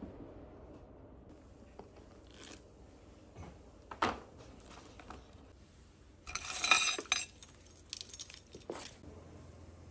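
A bunch of keys jangling as it is picked up from a tray: about a second of dense clinking, then a few smaller jingles. A single knock comes a couple of seconds before.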